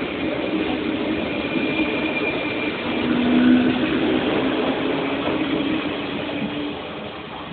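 Electric commuter train running through the station at speed, its wheels rumbling on the rails. The sound is loudest about three and a half seconds in and fades over the last second as the rear cars go by.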